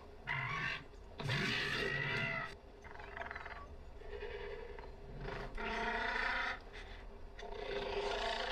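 Dinosaur calls for a pack of Velociraptors: about five rough, bleat-like cries, one every second or two, over a faint steady drone.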